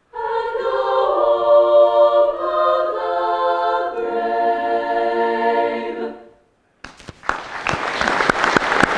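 A choir singing a cappella, holding chords that change twice, ending about six seconds in. Moments later applause breaks out.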